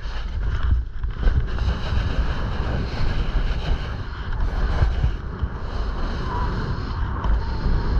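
Wind rushing over an action camera's microphone as a snowboard runs fast through deep powder, with the steady hiss of the board cutting through the snow.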